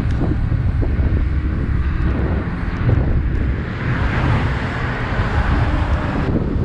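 Wind buffeting an action camera's microphone while riding on the road, a steady dense rumble with no clear tones.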